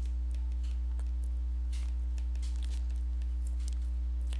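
Steady low electrical hum with faint, irregular light ticks and scratches from a stylus writing on a tablet screen.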